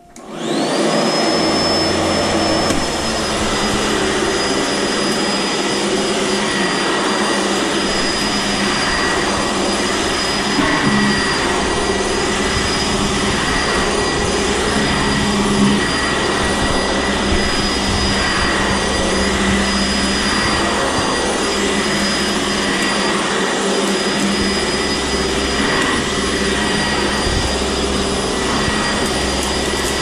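Sanitaire SC679J commercial upright vacuum cleaner switched on, its motor whine rising to full speed within about a second, then running steadily with a high whine while it is pushed over carpet.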